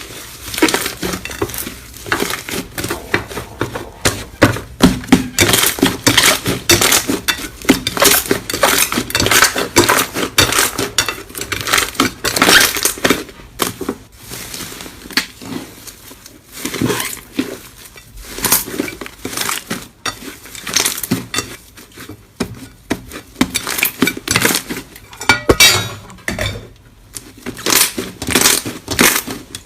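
Slime being worked by hand: dense, irregular crackling and clicking, with a few short lulls.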